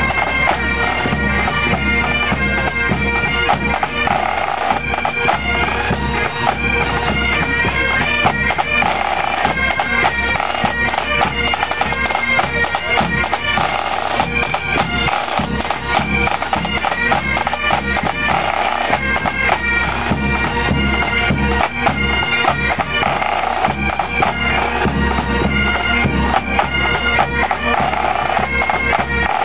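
Pipe band playing a march up close: massed Great Highland bagpipes with steady drones under the chanter melody, and drums beating.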